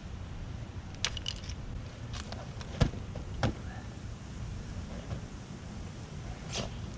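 Scattered sharp clicks and knocks of gear being handled, the loudest about three seconds in, over a steady low rumble of wind on the microphone.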